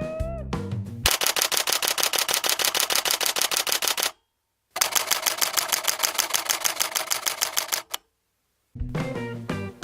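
Canon EOS 6D Mark II digital SLR shutter and mirror firing in continuous burst mode: two runs of rapid, evenly spaced clacks, each about three seconds long, with a short pause between them. A brief musical jingle plays in the first second, and music returns near the end.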